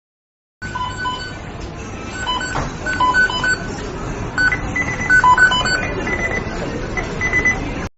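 McDonald's kitchen beeping sound effect: many short electronic beeps at several different pitches, often in quick pairs, over steady kitchen background noise. It starts suddenly under a second in and cuts off abruptly just before the end.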